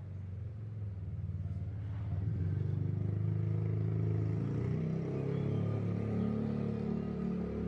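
An engine running, with a low pulsing hum that grows louder over the first couple of seconds and then holds steady.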